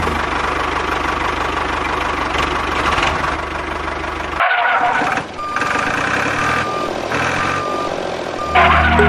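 Tractor engine running steadily with a rapid low chugging. About halfway through the sound changes abruptly, and short high beeps repeat several times, like reversing beeps.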